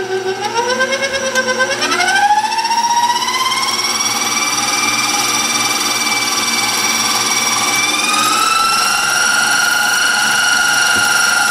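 Electric mixer running steadily while it beats cream-cheese and sour-cream cheesecake batter. Its motor whine steps up in pitch as it speeds up, most plainly about two seconds in, and once more near eight seconds.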